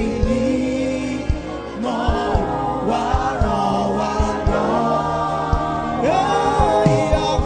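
Gospel worship music: a choir and lead voice singing over keyboard chords and a steady drum beat.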